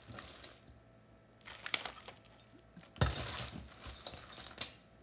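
Boiled crawfish being scooped out of the pot: their hard shells clatter and clink against each other and the cookware, with a solid knock about three seconds in.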